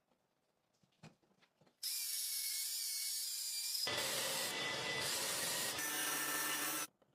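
An abrasive power tool working steel. A steady high hiss starts about two seconds in, grows fuller and lower about halfway through, and cuts off suddenly near the end.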